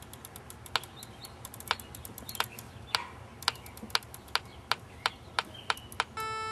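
Keypad buttons on a small handheld electronic device pressed over and over: sharp, irregular clicks about two or three a second. Near the end, a steady electronic tone with several pitches comes in and holds.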